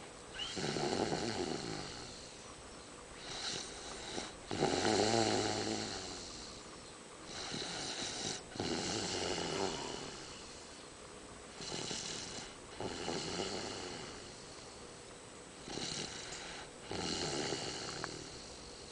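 A sleeping toddler snoring in a slow, regular rhythm. Each breath comes as a short, softer sound followed by a longer, louder snore, about every three to four seconds.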